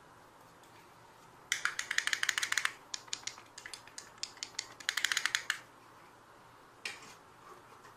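Rapid runs of small sharp plastic clicks and rattles as a small plastic case is handled and worked in the hands: two dense bursts of clicking with scattered single clicks between them and one last click near the end.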